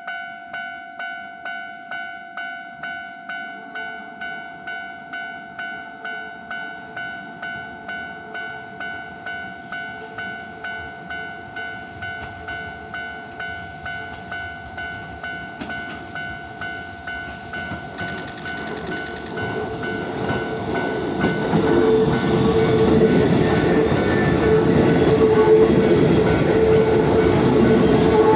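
A level-crossing warning bell rings steadily at about one and a half dings a second. About two-thirds of the way in there is a brief high-pitched sound, then a train approaches and passes, its rumble and wheel clatter growing loud and covering the bell.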